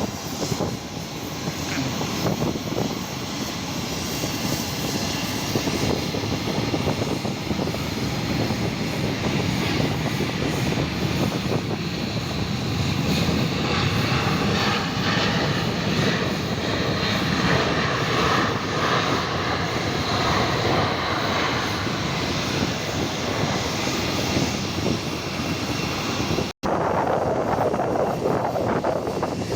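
Airliner engines running with a steady, dense noise that grows somewhat fuller through the middle. It breaks off for an instant near the end and picks up again.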